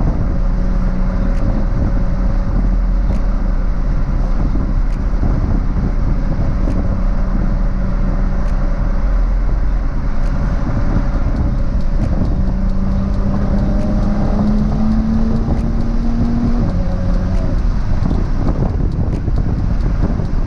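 Nissan GT-R R35 with a 4.1-litre twin-turbo VR38 V6 and ETS stainless exhaust cruising, a heavy road and wind rumble under a steady engine hum. Partway through, the engine note climbs for a few seconds, then drops suddenly.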